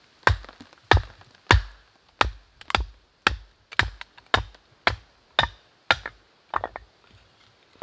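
Firewood being split by hand: a steady series of about a dozen sharp chopping blows, roughly two a second, each with a dull thud, stopping shortly before the end.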